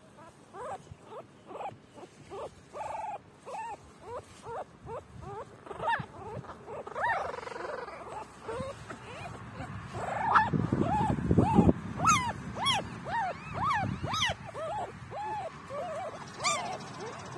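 Newborn puppies whimpering and squealing in a long run of short cries, about two a second, each rising and then falling in pitch. The cries get louder and shriller after about ten seconds, while a hand rustles through the grass for a couple of seconds.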